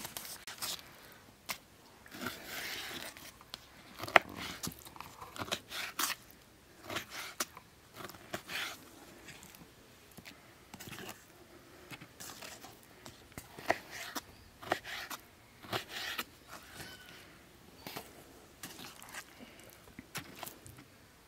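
Irregular crisp crunches, scrapes and sharp clicks of food being cut and handled by hand, with no steady rhythm. A single sharp click about four seconds in is the loudest.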